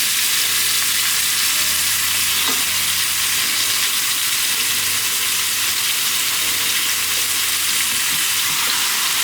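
Seasoned oxtail sizzling in a little olive oil in an uncovered pot on the burner: a steady, even frying hiss as the meat browns.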